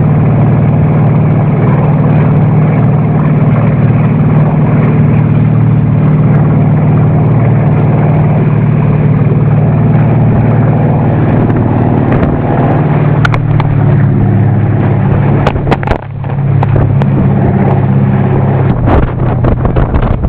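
Classic motorboat engine running steadily at speed under a rush of wind and churning wake water. A few sharp knocks come in the last third.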